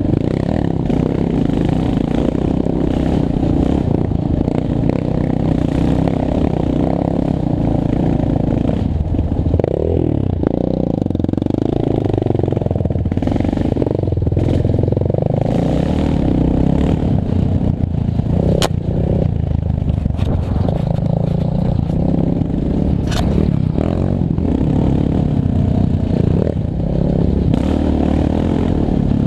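Yamaha Raptor 700R ATV's single-cylinder four-stroke engine running hard on a dirt trail, its revs rising and falling as the rider works the throttle.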